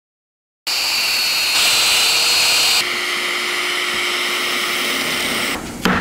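A power tool motor running steadily, a high whine over a rushing hiss, its note shifting about two seconds in and stopping near the end. A sharp hammer strike on wood follows at the very end.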